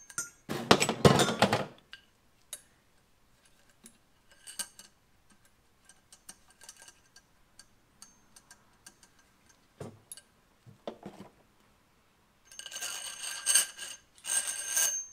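Damper piston and coil spring sliding and rattling inside a steel Harley-Davidson Sportster fork tube as the tube is tipped. A loud metallic clatter comes about a second in, then scattered light clinks, then two bursts of ringing metal scraping near the end.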